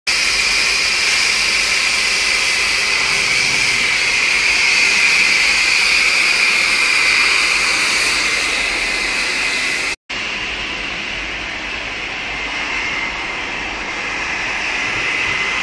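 CNC gantry oxy-fuel cutting torch hissing steadily as it cuts steel plate, an even loud hiss with a high whistling edge. The sound breaks off for an instant about ten seconds in, then resumes a little quieter.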